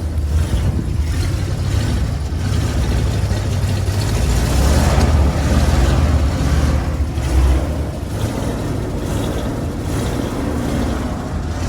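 Step van's engine running, a steady low rumble that grows somewhat louder for a few seconds in the middle; the owner says the engine has a blown head gasket.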